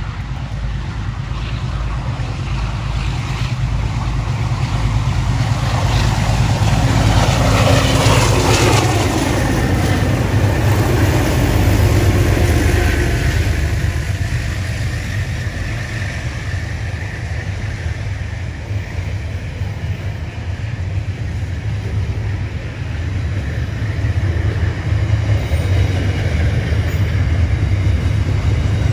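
Container freight train passing close by: a steady low rumble of the wagons rolling over the rails, with a whine that falls in pitch about eight seconds in.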